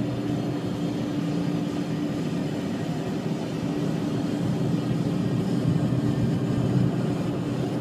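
Automatic car wash machinery running outside the car, heard from inside the cabin: a steady, muffled rumble and hiss with a constant hum.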